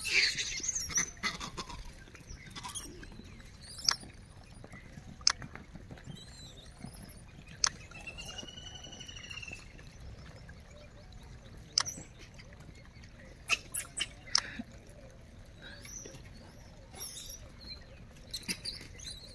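Quiet outdoor ambience around a troop of gray langurs feeding: a brief noisy burst at the start, then scattered short sharp clicks and chirps, and one drawn-out arching call about eight seconds in.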